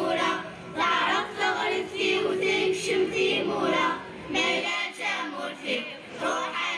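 A choir of children singing together over music, amplified through a PA. A steady held backing note under the voices drops away about two-thirds of the way through.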